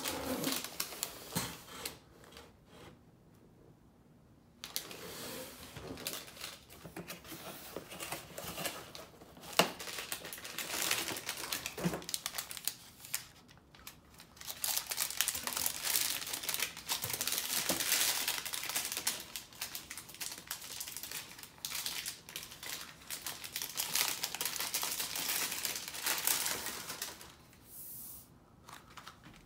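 White packing paper crinkling and rustling as it is handled and pulled off a wrapped vacuum wand. There is a brief pause early on and a single sharp click about a third of the way in. Then comes a long stretch of dense crinkling from about halfway through that stops shortly before the end.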